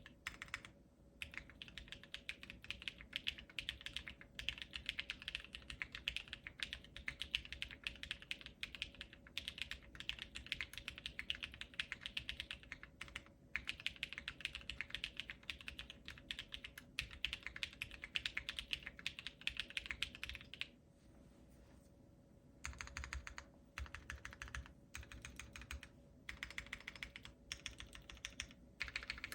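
Fast, continuous typing on a Wind.X mechanical keyboard with a POM plate, lubed Durock Sunflower tactile switches and Domikey ABS keycaps. The keystrokes pause for about two seconds a little past two-thirds of the way through, then resume in shorter bursts.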